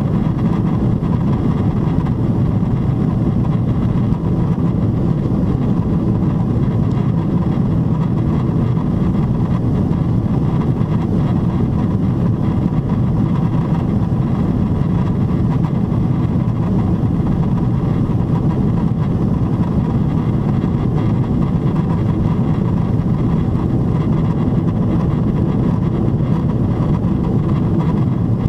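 Steady low cabin noise inside a Boeing 777-300ER airliner climbing at climb thrust on its GE90-115B engines, an even rumble with no changes.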